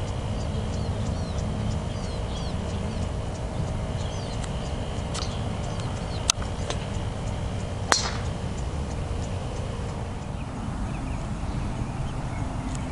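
Two sharp clicks of golf clubs striking balls, about a second and a half apart near the middle, over a steady low outdoor rumble. Birds chirp faintly in the first half.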